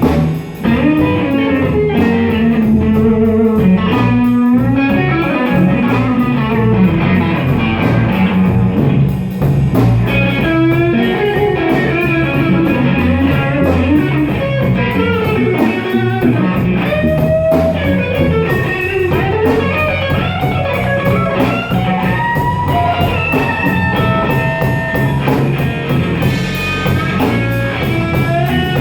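Blues music with an electric guitar playing a lead line full of bent notes, over a steady band accompaniment.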